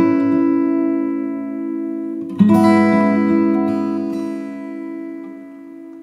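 Background music: strummed acoustic guitar chords that ring and die away, with a fresh chord struck about two and a half seconds in, then fading out near the end.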